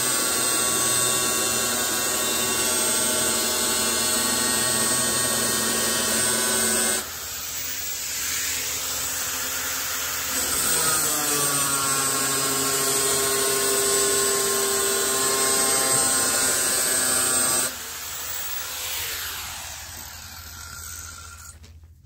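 Handheld angle grinder with an abrasive cutting disc cutting a steel sheet, a loud steady whine. The sound drops quieter about seven seconds in, grows loud again from about ten seconds in, then drops again around eighteen seconds and fades out near the end.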